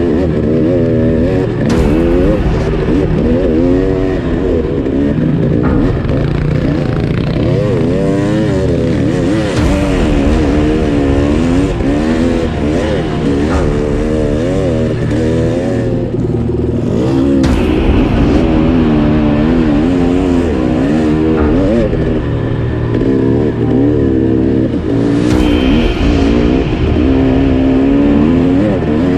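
300cc two-stroke enduro dirt bike engine under way, its revs rising and falling constantly as the throttle is worked.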